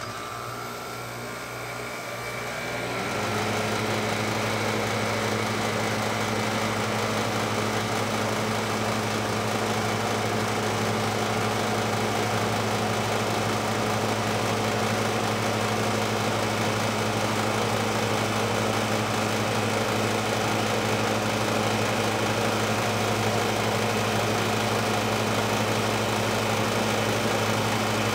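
Hermetic refrigeration compressor of a condensing unit, powered at 240 volts and used as an air compressor, pumping pressure up against a 350 psi relief valve. It runs with a steady mechanical hum that grows louder and settles about three seconds in, then holds even.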